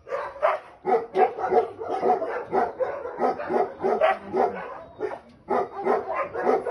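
Dog barking in a fast string of high, yelping barks, about three a second, with a brief pause about five seconds in.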